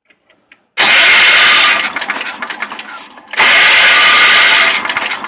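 Electric starter cranking a Wheel Horse tractor's 10 hp Kohler engine in two bursts of about a second each. The engine turns over without catching. The ignition points have just been cleaned, and it now has spark.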